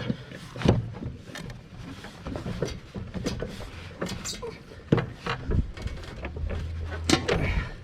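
Irregular metal clanks and knocks of hand tools against a zero-turn mower's blade and deck as the blade's mounting bolt is tightened.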